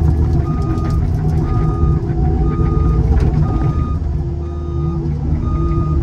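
Heavy machine's diesel engine running hard while travelling in high-speed mode, with a backup alarm beeping about once a second and light rattling from the cab.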